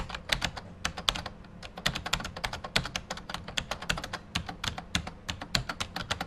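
Rapid, irregular clicking, about seven sharp clicks a second, over a faint steady low hum.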